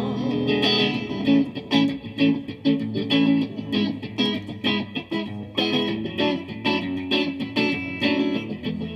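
Live music: a guitar plays an instrumental break between sung verses, a quick run of plucked notes and chords.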